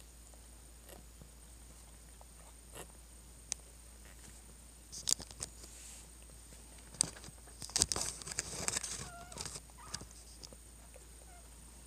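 Mother cat licking a newborn kitten clean: clusters of wet licking and rasping clicks through the middle, with a brief squeak among them.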